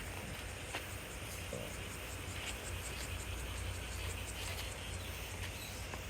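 Outdoor ambience: a steady low rumble with scattered short, crisp clicks and snaps.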